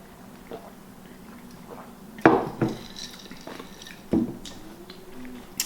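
Chopsticks and dishes clinking: a few short, sharp taps, the loudest a little past two seconds in.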